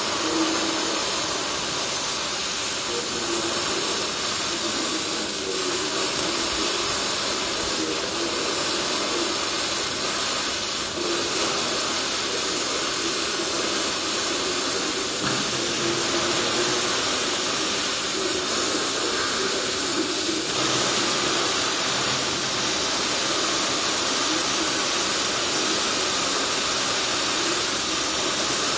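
MIG welding arc running continuously along a steel I-beam seam, a steady hiss.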